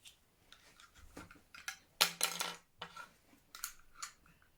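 Computer mouse and its plastic packaging being handled and put back into the box: a run of small clicks and clatters, the loudest about two seconds in.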